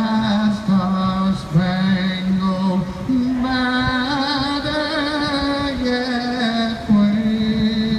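A song playing, with a singer holding long, wavering notes over the accompaniment.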